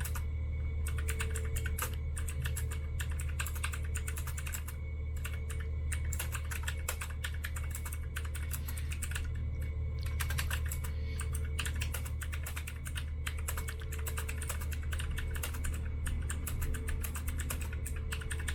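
Fast, continuous typing on a mechanical keyboard, a rapid stream of key clicks with a few brief pauses, over a steady low hum.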